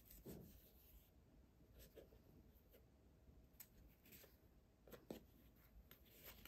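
Faint rustling and soft taps of paper and cardboard as a hand-stitched notebook with kraft cardboard covers is turned over and handled, a few scattered short sounds.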